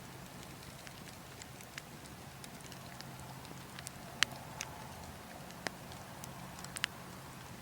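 Burning wood logs crackling: scattered sharp pops and snaps, the loudest about four seconds in, over a steady low rumble of wind.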